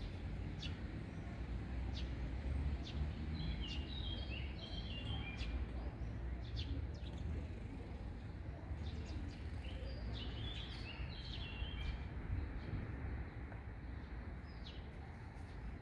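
Small songbirds chirping in short, quick, high notes, in two bursts of phrases, over a steady low rumble of outdoor noise.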